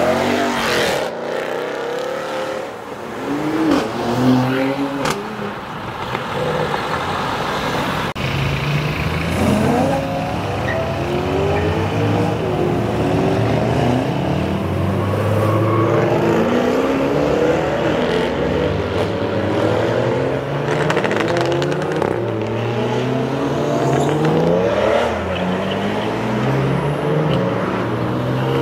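Sports car engines accelerating hard past, one after another, their revs climbing and dropping repeatedly as they shift up through the gears.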